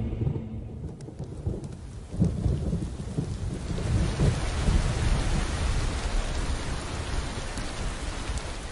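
A thunderstorm: low rolling rumbles of thunder, then heavy rain coming down steadily from about three seconds in, under continued low rumble.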